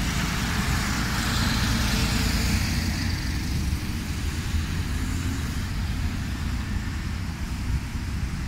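Road traffic driving past: a dump truck goes by first, its engine and tyre noise loudest over the first few seconds and then fading, followed by lighter cars and a van, over a steady low rumble.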